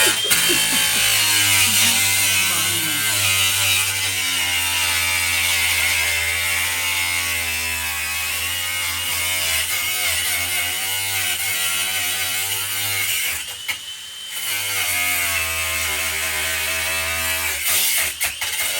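Handheld electric power tool running under load for long stretches, its motor speed wavering up and down, with a short break about thirteen seconds in.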